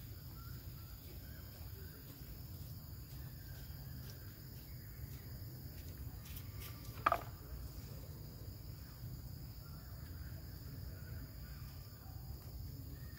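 Faint forest ambience: a steady high insect drone over a low rumble. About seven seconds in comes one short, sharp call that slides in pitch.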